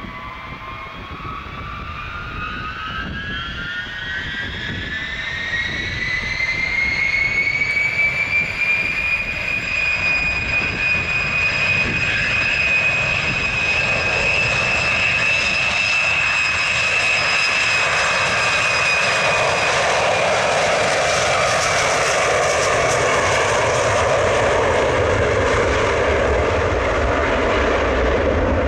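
Tupolev Tu-154M's three rear-mounted Soloviev D-30KU-154 turbofans spooling up to takeoff power. A whine rises in pitch over the first several seconds and then holds steady while the sound grows louder, and a deep rushing roar builds from about two-thirds of the way through as the jet accelerates down the runway.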